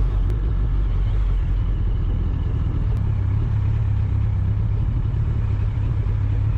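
Sport motorcycle engine running at low revs, a steady low rumble with no revving.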